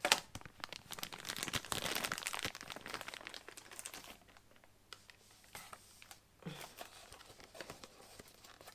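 Plastic packaging crinkling and rustling as bundled wiring is handled and unpacked. It is busiest for the first four seconds, then thins to occasional rustles.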